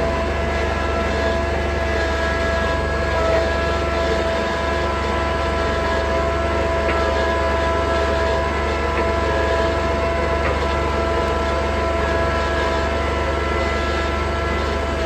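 Tractor engine running steadily at a constant speed while pulling a box blade.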